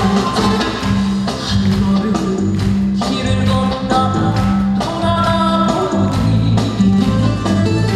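Korean trot band music with a steady beat and a strong bass line.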